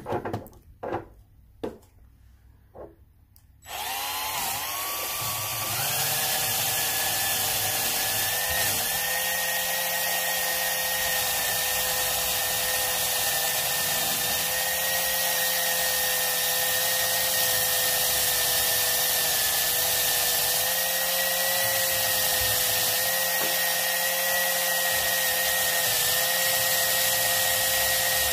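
A few small handling clicks, then about four seconds in an electric drill spins up a wire brush wheel in its chuck. Its whine rises and then runs steadily, with a hiss from the wires, while a freshly hand-cut brass key is held against the wheel to brush off the filing burrs.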